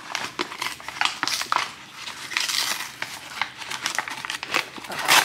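A flour bag being pulled open by hand, crinkling and tearing in irregular rustles, with a sharp louder rip near the end.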